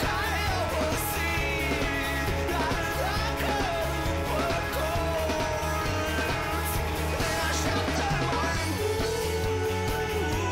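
Punk rock song: a male voice sings over electric guitars, bass and drums.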